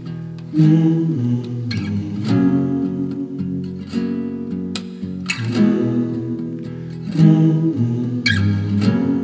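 Acoustic guitar music with chords strummed at an unhurried pace.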